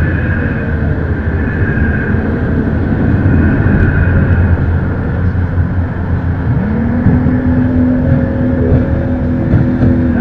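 Racing jet boat engines running hard at speed, with a second engine rising in pitch about six and a half seconds in and then holding high as the boats come on.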